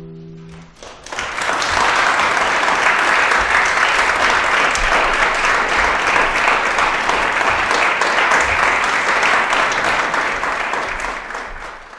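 The last classical guitar chord dies away, then audience applause breaks out about a second in and carries on steadily, tapering off near the end.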